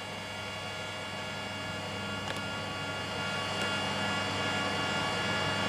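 Trenitalia electric locomotive pulling away slowly at the head of an express train: a steady hum with a high multi-tone whine from its traction equipment, growing slightly louder as it passes, with a couple of faint clicks.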